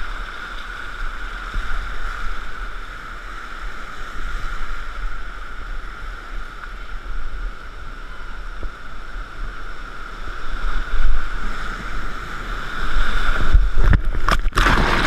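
Rushing whitewater around a kayak running a rapid, a steady rush that builds over the last few seconds. Near the end come several sharp splashes as the boat drops into a breaking wave and water slaps over the bow and camera.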